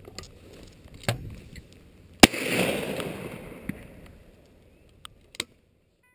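A single shotgun shot fired at a flying pheasant about two seconds in, very loud and close, its report trailing off over the next second or so. A fainter sharp crack comes about a second before it.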